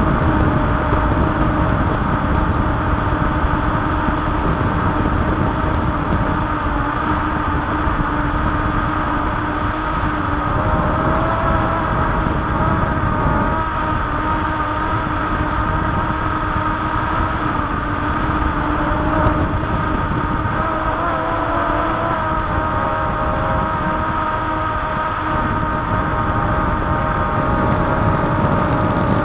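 Drone's electric motors and propellers whining steadily in flight, the pitch of the whine drifting a little up and down, over a low rumbling noise.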